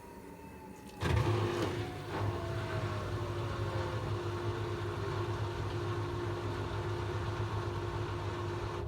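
Gorenje washing machine winding down at the end of its final spin: a motor whine falls steadily in pitch as the drum slows, over a steady hum. About a second in, the sound jumps suddenly louder.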